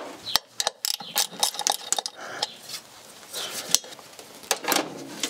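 Hand tools clinking, knocking and scraping against metal in a car's engine bay while the air filter housing is being unbolted. Sharp clicks come in the first couple of seconds, followed by scraping.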